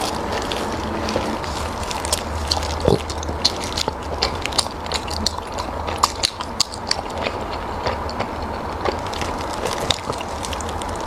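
Close-miked chewing and mouth sounds of someone eating soft food, a dense irregular run of small clicks and smacks over a steady low hum.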